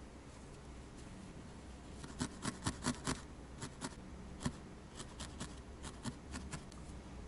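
Felting needle stabbing into a wool felt cat face. A run of short crisp pokes starts about two seconds in, five in quick succession, then they come sparser and more spaced out.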